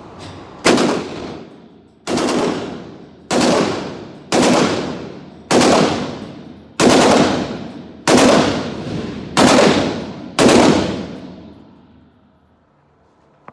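Nine single shots from a Glock 34 Gen 5 MOS 9mm pistol, fired at a steady slow pace about one every 1.2 seconds. Each report rings on for about a second in the reverberant indoor range.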